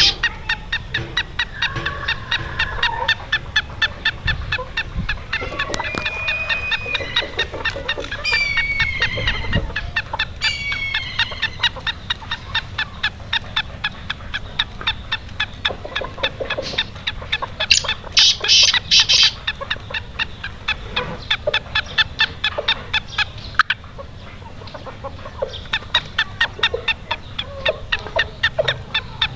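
Black francolin calling: a rapid, even run of harsh clicking notes, about four a second, with a few gliding whistled notes between about six and eleven seconds in.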